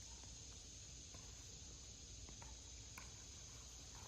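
Faint outdoor ambience with insects giving a steady high-pitched drone, and a few faint ticks.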